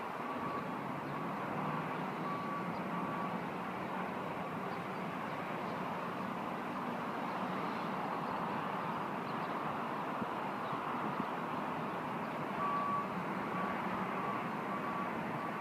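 Steady hum of distant road traffic heard from high above, with a faint repeating beep, like a vehicle's reversing alarm, for the first few seconds and again near the end.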